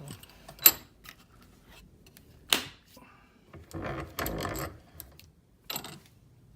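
Hands working a bench vise fitted with PLA jaw sleeves: three sharp hard clicks and knocks, with a scraping rub of about a second in the middle.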